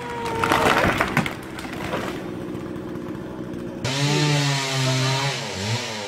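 A felled tree crashing and splintering into a neighbouring tree, with a burst of cracking wood in the first second or so, over a running chainsaw. About two-thirds of the way through, the sound changes abruptly to a louder pitched drone that wavers up and down.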